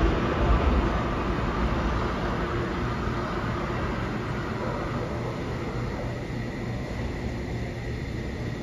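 New York City subway train running away along the express track, its rumble and rail noise fading steadily.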